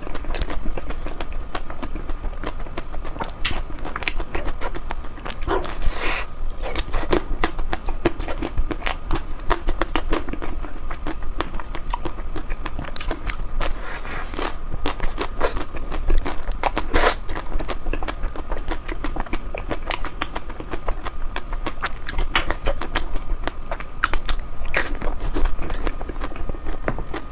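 Ice cream being chewed and bitten close to the microphone: a dense, irregular run of wet crunches and clicks. A faint steady high tone sits underneath.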